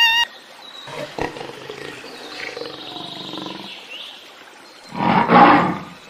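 A big cat growling low, then a loud roar about five seconds in.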